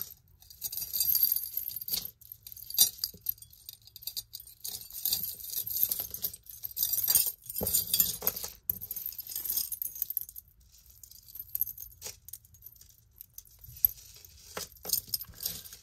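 Tangled metal necklace chains and small pendants jingling and clinking as they are picked apart and pulled free by hand. The clinks come in irregular clusters, thinning out for a few seconds toward the end.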